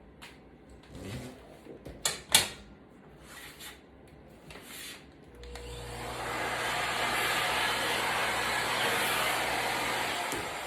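Light handling clicks and knocks, two of them sharp just after two seconds in. About halfway through, a canister vacuum cleaner switches on and runs with a steady rushing whoosh and a low hum, most likely cleaning up shattered screen glass shards. It shuts off shortly before the end and winds down.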